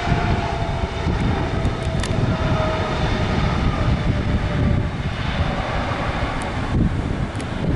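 Jet airliner passing, its engine whine slowly falling in pitch, under heavy wind rumble on the microphone.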